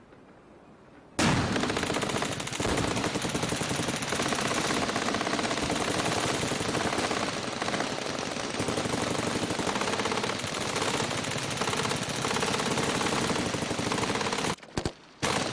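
Heavy sustained gunfire of a large firefight, many guns including machine guns firing at once in a dense, continuous rattle. It starts abruptly about a second in and cuts off shortly before the end.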